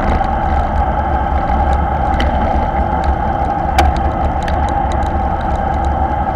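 Wind rushing over an action camera's microphone on a road bike riding at about 40 km/h in a bunch, with tyre noise on the tarmac. Scattered small clicks from the bikes, with one sharp click a little under four seconds in.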